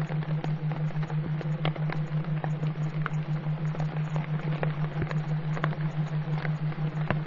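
A low steady hum that pulses about six times a second, over a hiss with scattered crackles. It is the masking backing track of a subliminal affirmation audio.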